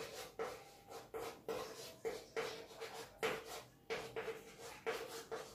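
Chalk writing on a blackboard: a run of short scratchy strokes, about two or three a second, many with a faint squeak.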